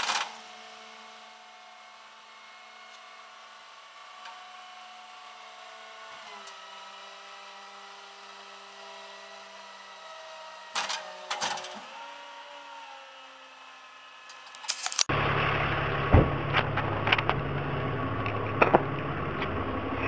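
A rollback tow truck running steadily, a low, quiet hum whose pitch steps down about six and twelve seconds in, with a few clicks near eleven seconds. About fifteen seconds in, louder rustling and sharp knocks close to the microphone take over.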